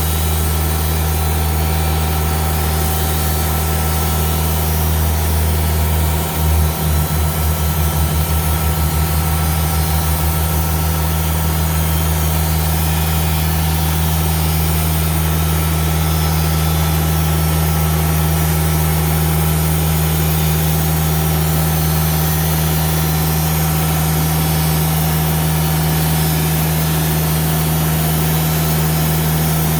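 Diesel engine of a Timberking 2000 band sawmill running with a steady low hum, its sound briefly wavering and pulsing about six seconds in before settling again.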